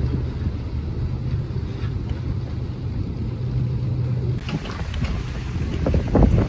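Strong wind buffeting the phone's microphone, a low rumbling roar over a steady low hum, with a louder gust near the end.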